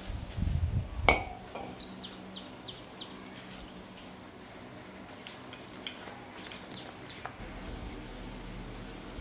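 A metal aerosol can set down on concrete with one sharp, ringing clink about a second in, then scattered faint light clicks and handling noise as hands work on an electric-bike hub motor stator.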